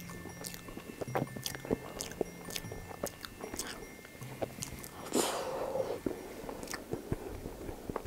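Close-miked eating sounds of cream cake: a metal fork clicking against a porcelain plate and moist chewing, with a louder scraping sound lasting about a second from about five seconds in. Soft background music plays underneath.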